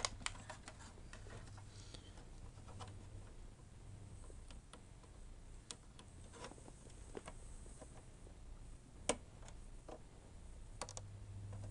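Faint, scattered clicks and taps of the PS4 console's plastic parts and connectors being handled and pried during disassembly, one sharper click about nine seconds in, over a low steady hum.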